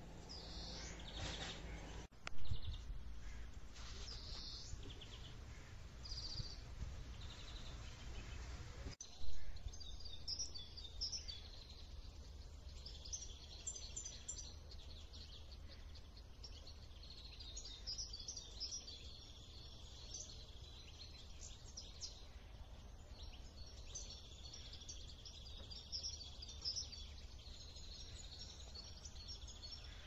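Small birds chirping and twittering over a steady low rumble of wind on the microphone. There are two brief louder bursts about two and nine seconds in.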